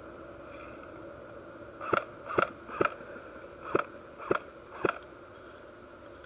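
Six sharp snaps in two quick groups of three, each about half a second apart, the first starting about two seconds in.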